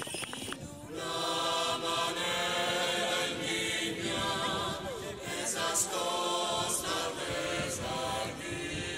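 Choral singing: several voices chanting long held chords, coming in about a second in after a brief lull.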